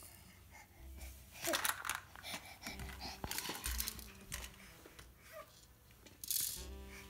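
Scattered light clicks, rattles and rustles of a baby crawling among plastic toys in a playpen.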